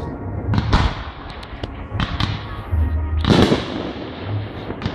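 Aerial fireworks launching and bursting: a string of sharp bangs, the loudest about three and a half seconds in, over a steady low rumble.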